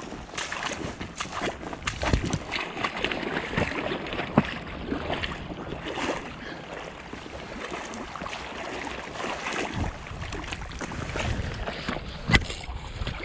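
Moving river water splashing and churning, with a sharp knock about four seconds in and another near the end.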